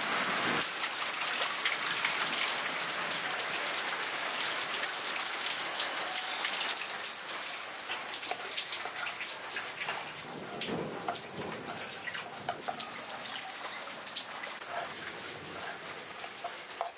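Steady rain falling, slowly easing. Through the second half, knife taps on a wooden chopping board as tomatoes are diced.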